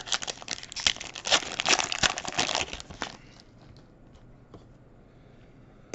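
Foil wrapper of a Panini Mosaic basketball card pack being torn open and crinkled in the hands for about three seconds, then a few faint ticks as the cards are handled.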